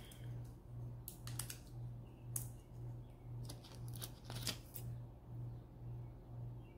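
Scattered sharp clicks and snips from handling a strip of rhinestones, over a low hum that swells and fades about twice a second.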